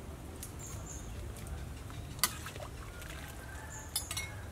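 A metal ladle stirring a large pot of soup, with liquid sloshing and dribbling and the ladle clinking sharply against the pot about two seconds in and a few times near the end, over a steady low rumble.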